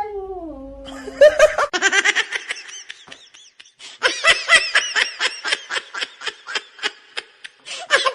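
A cat's drawn-out meow falls in pitch and fades about a second in. It is followed by a long run of laughter in short, rhythmic bursts, about three a second, with a brief break partway through.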